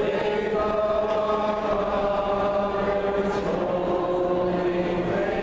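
A group of people singing a prayer together in unison, in slow, long-held notes.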